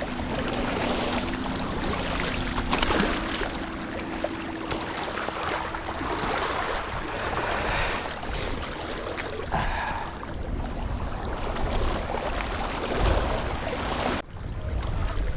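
Wind buffeting the microphone: a steady rushing rumble that swells and eases with the gusts.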